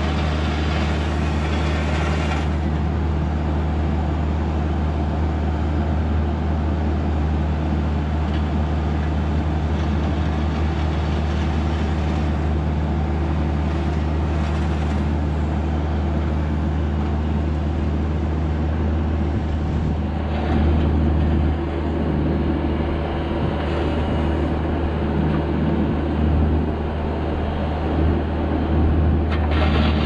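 Bobcat E26 mini excavator's diesel engine running steadily under hydraulic work as it digs with its bucket. The level swells briefly a few times in the second half.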